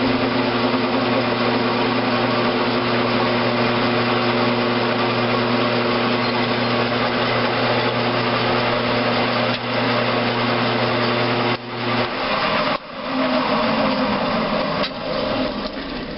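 Grizzly G9972Z 11x26 geared bench metal lathe running with a steady gear-drive hum while it turns and faces a valve blank. About twelve seconds in the steady hum breaks off and the sound turns uneven and rougher, growing quieter near the end.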